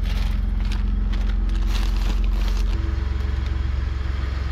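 Truck engine running steadily with a low hum, while light rustling and clicks of handling are heard over it. A sharp knock comes at the very end.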